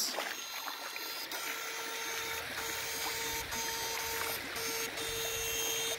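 Backpack electrofishing shocker giving off a steady mid-pitched electrical whine while current is sent through its two poles into the water. The whine starts about a second and a half in and cuts out briefly every second or so, with faint clicks at some of the breaks.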